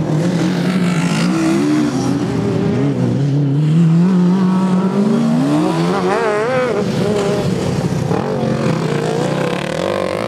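Racing lawn mower engines running hard, more than one at a time, their pitch climbing over the first few seconds as they accelerate, then wavering quickly up and down as the throttle is worked.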